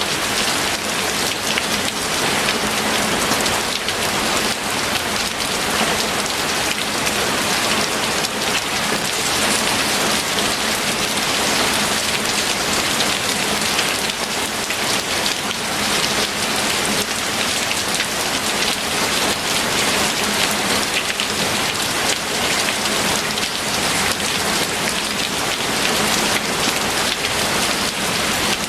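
Steady heavy rain, a dense even hiss full of fine drop patter on a surface.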